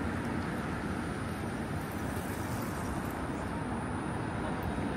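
Steady city street ambience: a constant wash of road traffic noise, with a faint steady high whine over it.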